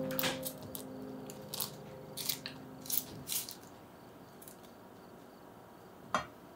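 Silicone spatula spreading and patting thick banana bread batter in a parchment-lined metal loaf pan: a run of short scrapes and soft taps in the first half, over a background music chord that fades out. One sharp click near the end.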